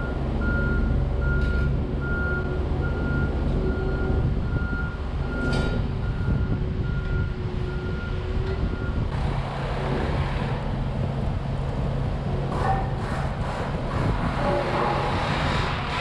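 Kubota skid steer's diesel engine running while its backup alarm beeps at an even pace; the beeping stops about nine seconds in. Then stone dust pours off the tipped bucket into the trench in a gritty rush, with scattered ticks of stones, over the engine.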